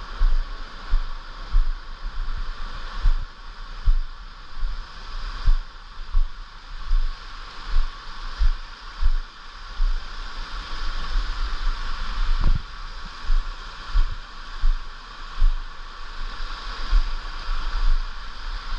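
Mountain stream water running steadily, with a regular series of low thuds of a hiker's footsteps, about one and a half a second.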